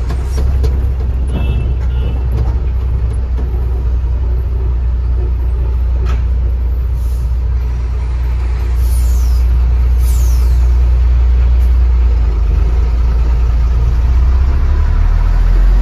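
Truck's diesel engine rumbling heard from inside the cab as the truck rolls slowly, getting louder about halfway through as it pulls away. Two short high falling sounds come a second apart near the middle.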